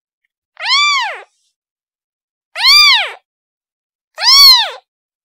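A kitten meowing three times, each meow about half a second long and rising then falling in pitch, with about a second of silence between them: a kitten calling for its mother.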